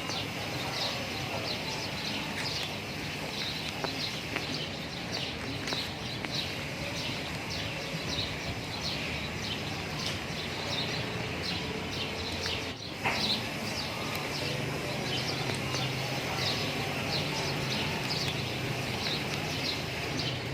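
Birds chirping outdoors: short high chirps repeating irregularly, a few a second, over a steady background hiss. A single sharp click about thirteen seconds in.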